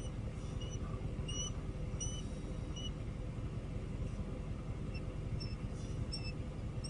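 Bald eagle calling: a run of short, high, thin chirps about one to two a second, pausing for a couple of seconds midway, over a steady low rumble.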